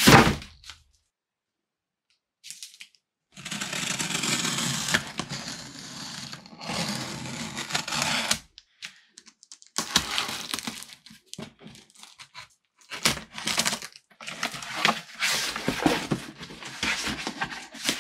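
Packing tape being pulled and torn off a cardboard shipping box, one long stretch of ripping followed by shorter rips, with the cardboard flaps rustling and knocking as the box is opened. A single sharp thump comes at the very start.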